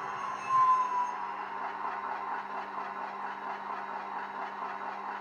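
DCC sound decoder in a Hornby Class 50 OO gauge model playing the original Hornby digital sound file, a steady diesel engine drone from the model's small speaker. A brief loud high tone, falling slightly, comes about half a second in.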